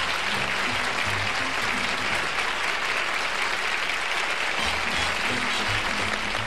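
Studio audience and panel applauding steadily, a dense even clapping.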